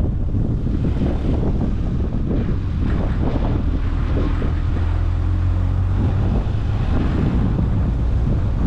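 Car driving with wind buffeting the microphone over a steady low road and engine rumble, with a low hum that strengthens in the middle.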